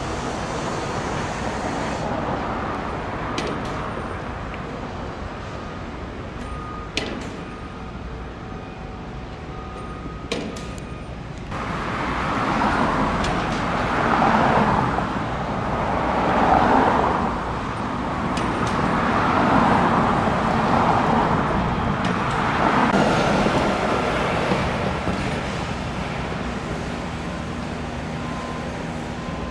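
Road traffic: a steady hum of street noise, then, from a bit over a third of the way in, a string of vehicles passing one after another, each swelling and fading over a couple of seconds. A couple of brief clicks come before the vehicles pass.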